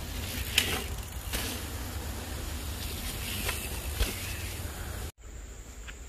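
Wind rumbling on the microphone with road and traffic noise while riding a bicycle, with a few light clicks or knocks. The sound cuts out suddenly about five seconds in and resumes quieter, with a faint high steady whine.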